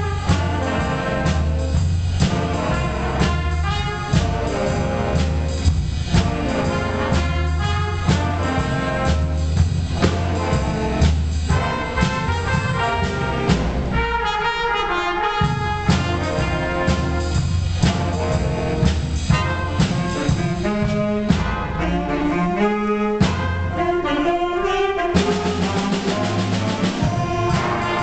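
Youth big band playing blues-style jazz: the trumpet and trombone section plays together over saxophones, piano, upright bass and drum kit. The bass and drums drop out briefly about halfway through, then come back.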